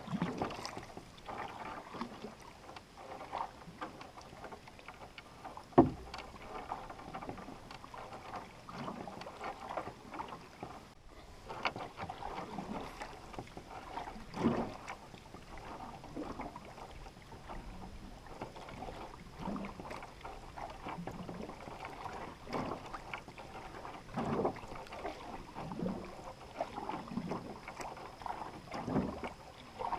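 Canoe paddle strokes in calm river water: soft, irregular swishes every second or two as the blade dips and pulls, with water running along the hull. A single sharp knock comes about six seconds in.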